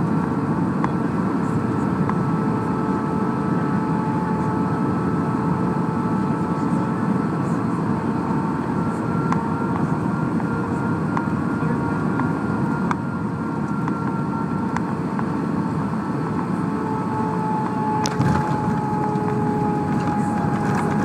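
Cabin noise of a jet airliner on final approach: steady engine whine in several tones over a constant rush of airflow. Near the end comes a single sharp thump as the wheels touch down on the runway.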